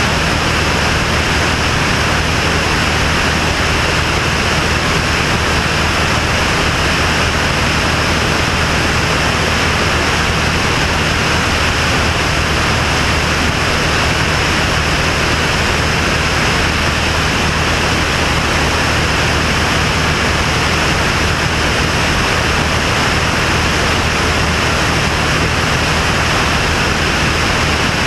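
Single-engine propeller plane in level cruise: a steady drone of the piston engine and propeller with a constant rush of air noise over it.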